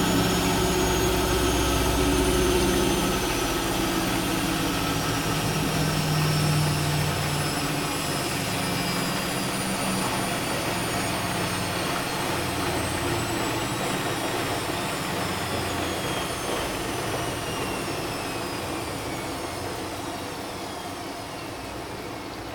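Bosch WFK2801 front-loading washing machine winding down from its intermittent spin, in the cottons 60 °C programme before the softener rinse. The motor whine falls steadily in pitch and the drum rumble fades as it slows.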